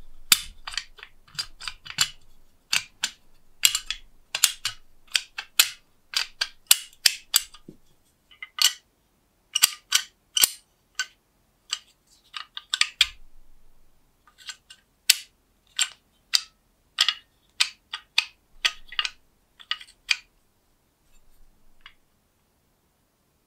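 Rusty antique door lock's latch and handle mechanism clicking and clacking as the handle is worked back and forth, sharp metal clicks in quick irregular clusters that stop a few seconds before the end. The latch is jamming and does not fully retract, fouled by rust.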